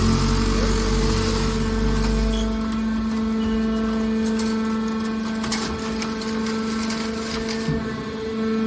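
Scrap car baler's hydraulic power unit running with a steady pitched hum. A heavy deep rumble under it drops away about two and a half seconds in, and a few faint knocks come later.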